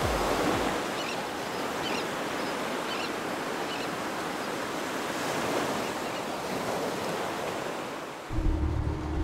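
Sea waves washing, a steady hiss of surf. About eight seconds in it cuts to a boat's engine running with a steady hum and wind buffeting the microphone.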